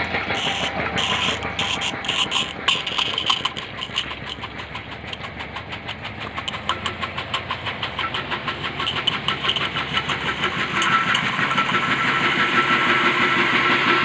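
Single-piston car-wash pressure pump, driven by a three-phase electric motor, running with a rapid, regular pulsing as it drives a water jet out of the lance nozzle. The sound gets louder over the last few seconds.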